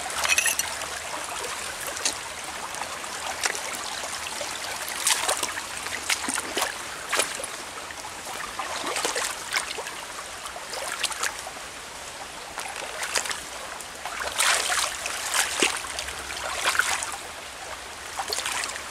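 A small muddy stream running and trickling over its bed, with frequent short clicks and splashes over it.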